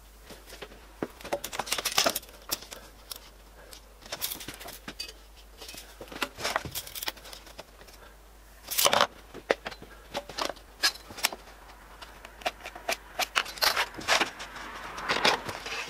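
Scattered clicks, taps and short scrapes of hand work on a plywood saw table: a thin wooden strip and measuring tools (tape measure, pencil, combination square) being handled, marked with and set down.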